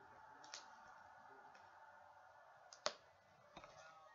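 Very faint clicks of a kitchen knife cutting raw potato on a wooden chopping board, with one sharper knock of the blade on the board about three seconds in, over a faint steady hum.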